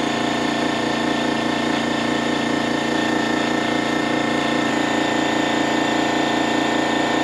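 Air compressor motor running with a steady hum while air is fed through the hose into a freshly mounted motorcycle tyre to inflate it and seat it.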